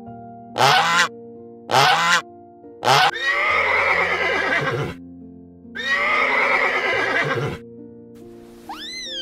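Domestic geese honking three times in short loud calls, then a horse neighing twice, each whinny lasting about two seconds with a falling pitch. Background music plays underneath.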